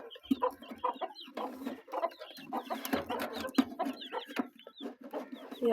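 Chickens clucking, among a clutter of short knocks and brief high chirps.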